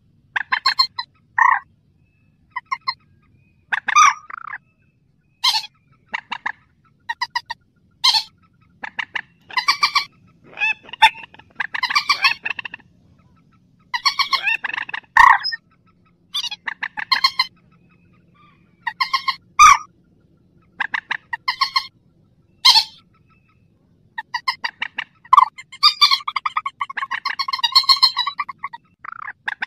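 Mandar sawah, a rice-field rail, calling over and over as a trapping lure: short bursts of fast, stuttering pulsed notes, some phrases longer than others, with short gaps between them.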